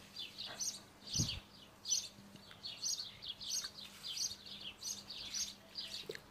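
Small birds chirping over and over, quick high chirps that slide downward, about two a second, with a low thump about a second in.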